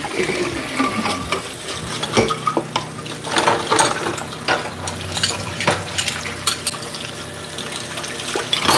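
Kitchen tap water running into a stainless steel sink while a tumbler and spoons are rinsed, with frequent clinks and knocks of dishes and cutlery against each other and the sink.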